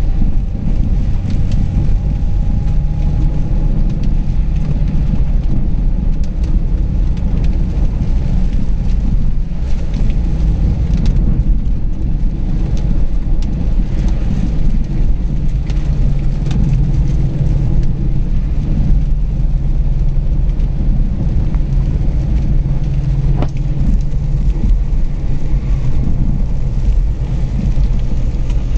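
Inside a car driving on a wet highway in rain: a steady low rumble of the engine and tyres on the wet road, with rain on the windscreen and a few faint ticks.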